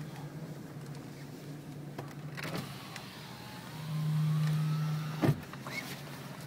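A small electric motor runs for about a second and a half with a faint rising whine, then stops with a sharp clunk. A steady low hum runs underneath.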